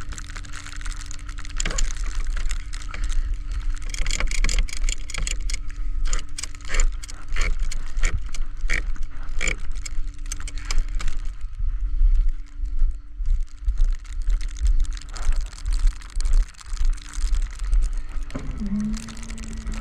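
Many quick metallic clicks and rattles, densest in the first half, over a steady low rumble and hum.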